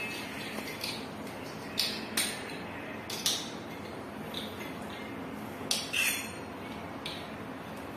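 Short metallic clinks and scrapes in small clusters, about two, three and six seconds in, as a metal plumbing fitting is handled and worked onto a pipe outlet in the wall. A steady hiss runs underneath.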